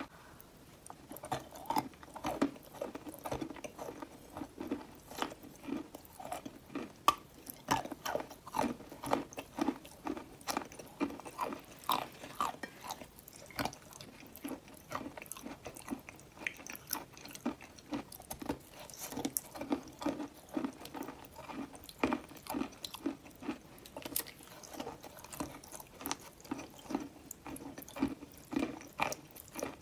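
Close-up crunching and chewing of a chalk piece coated in wet clay, in a steady run of bites and chews at about two a second.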